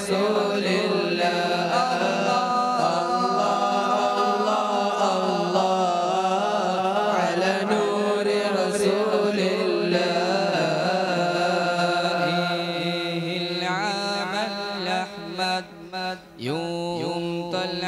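Group of young male voices singing an Arabic nasheed together through microphones, with long held, ornamented notes. About fourteen seconds in the melody breaks into quick up-and-down vocal runs.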